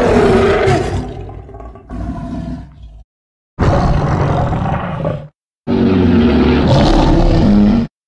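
Custom-designed Indominus rex creature roars, deep and rough: a roar that fades into a shorter, quieter burst, then two more roars of about two seconds each, cut apart by moments of dead silence.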